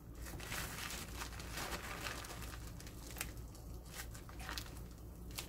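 Thin plastic bag crinkling and rustling in the hands as sliced cucumber and onion inside it are wrung to squeeze out their water, with scattered small crackles.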